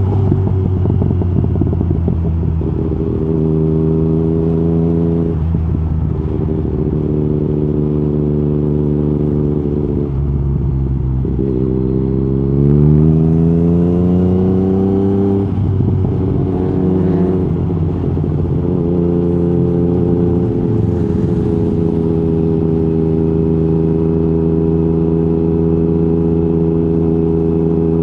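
Yamaha MT-09 SP's three-cylinder engine through an Akrapovic Racing Line exhaust with the db-killer removed, running at a steady cruise. About ten seconds in the note drops briefly, then rises for about four seconds as the bike accelerates, falls away, and settles back to steady running for the last nine seconds or so.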